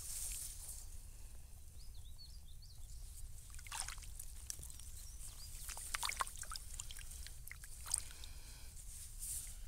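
A hand splashing and sloshing in shallow rice-field floodwater, reaching in and pulling a clump of aquatic weeds up by the roots, with a run of short splashes from about four to eight seconds in. A steady low rumble lies under it.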